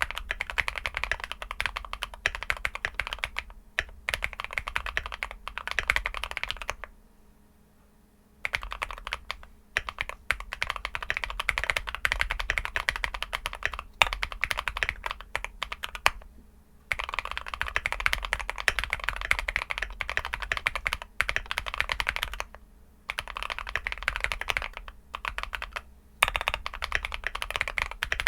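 Fast typing on an Akko MOD001 custom mechanical keyboard with a PC plate and foam, fitted with linear switches (JWK Ultimate Black housings, Kailh Red stems): a dense run of keystroke clacks. It breaks off in brief pauses, the longest about seven seconds in.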